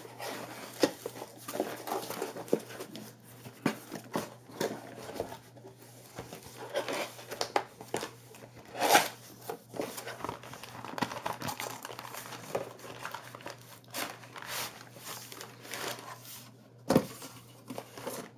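A sealed cardboard box being torn open by hand, then clear plastic wrapping crinkling: a run of irregular rustles, rips and handling knocks, with two louder sharp sounds about halfway and near the end.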